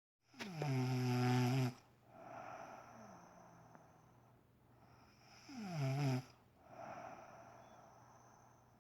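A sleeping woman snoring loudly: two snores about five seconds apart, each starting with a quick drop in pitch and then holding a low buzzing tone. Each is followed by a softer, breathy sound.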